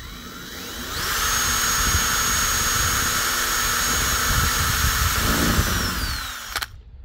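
Cordless drill boring a small pilot hole through a carbon-fibre car roof. The motor spins up over about a second, holds a steady high whine with cutting noise, and the tone changes near the end as the bit reaches the metal underneath. It then winds down and stops.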